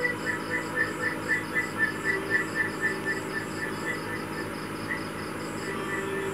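Rhythmic high chirping like insects, about four chirps a second, loudest in the first half and fading out after about three and a half seconds, over a faint steady hum.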